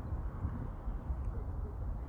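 Forest outdoor ambience: a steady low rumble with a faint hiss.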